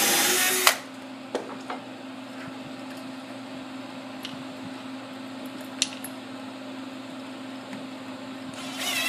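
Cordless drill driving a wood screw into a wooden block, running loud and stopping less than a second in. Then a few light clicks of handling over a steady low hum, and the drill starts up again with a rising whine at the very end.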